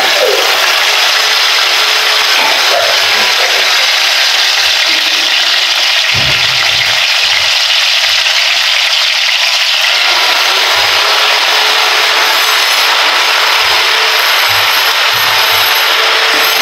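Tomato and onion paste frying in hot oil in a kadai, giving a loud, steady sizzle.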